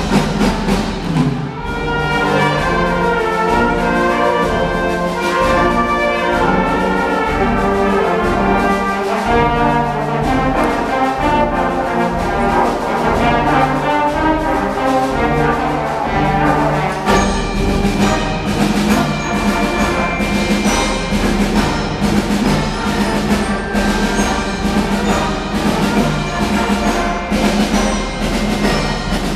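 Elementary school brass band playing live: trumpets, trombones, euphoniums and tubas with mallet percussion. A little over halfway through, a steadier beat and deeper bass come in.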